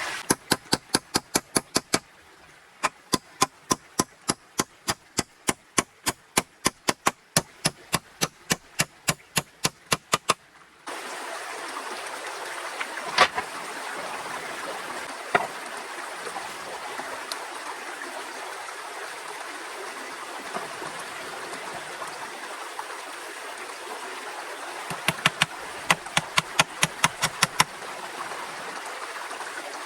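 Quick, even knocks, about three a second, for roughly ten seconds. Then a steady rushing like running water, broken by a few single knocks. The quick knocking starts again near the end.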